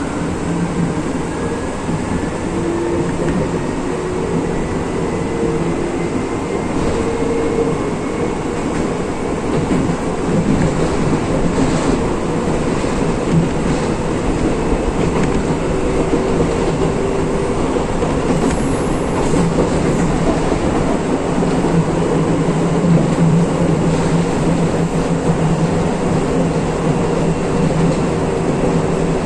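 Electric passenger train running along single track, heard from inside the driver's cab: a steady rumble of wheels on rail with a motor hum. A faint whine rises in pitch over the first few seconds, and a scatter of clicks from the wheels passing over rail joints comes around the middle.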